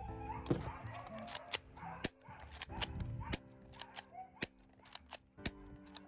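XK918 spring-type airsoft pistol, an M1911-style replica, being worked by hand: a string of about ten sharp plastic clicks and snaps at uneven intervals as the slide is pulled back and springs forward. Background music plays underneath.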